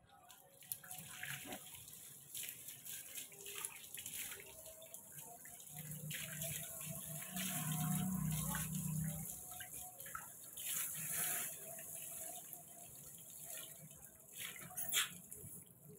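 Water from a garden hose spraying over a monkey being bathed and splashing onto a wet concrete floor, in uneven gushes and splashes. A short, sharp sound comes near the end.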